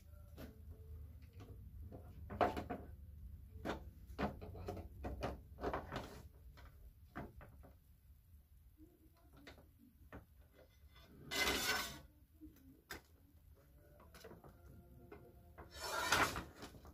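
Scattered knocks, clicks and rustles of a child mannequin being handled, fitted together and dressed. There are two louder brief rustles, one about eleven seconds in and one near the end.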